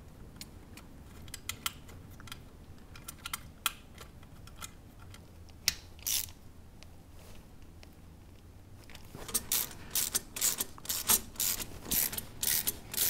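Ratcheting hand driver clicking as the bolts holding the skid-plate mounting bracket are turned in: scattered single ticks at first, then a quick run of ratchet clicks from about nine seconds in.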